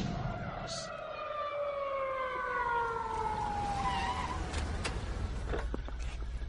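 A siren-like wail of several tones, sliding steadily down in pitch over about four seconds, followed near the end by a run of sharp clicks.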